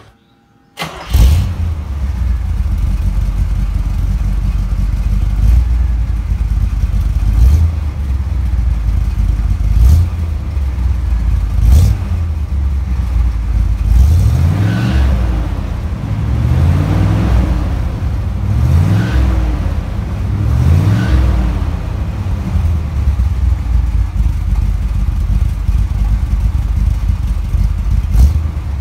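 A 1977 Corvette C3's L82 350 small-block V8 through Magnaflow straight-through mufflers with no catalytic converter, heard at the exhaust. It starts about a second in, idles with a few quick throttle blips, then revs up and back down four times, and settles back to idle.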